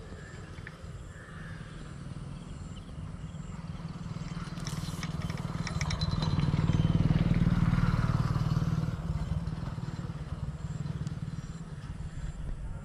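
A motor vehicle's engine passing by: a low running hum that grows to its loudest about halfway through and then fades away.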